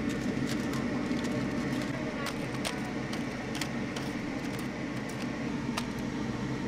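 Busy food-stall background of steady hum and distant chatter, with scattered sharp clicks of metal tongs against a stainless wire draining rack.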